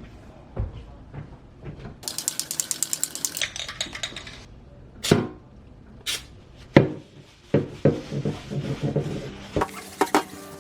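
Objects being handled in a kitchen: a rapid run of clicks, about ten a second, lasting a second and a half, then scattered knocks and taps.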